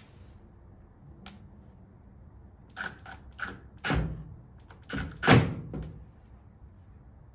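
A scattered series of sharp clicks and knocks, the loudest about four and five seconds in, from handling metal mounting hardware while a spotlight bracket is fitted to the car's pillar.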